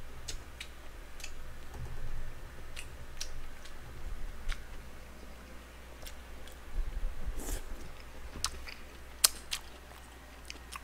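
A person eating pork kimchi stew and rice close to the microphone: chewing, with a scattered series of sharp clicks from metal chopsticks and the mouth. The clicks are strongest in the second half.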